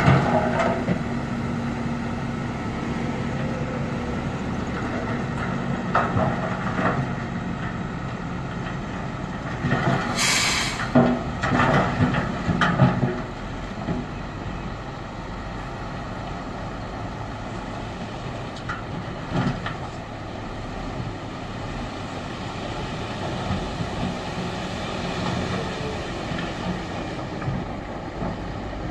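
Dump truck's diesel engine running as the tipper bed rises and the load of soil and rock slides out onto the ground. Clattering knocks and a brief hiss come about ten to thirteen seconds in.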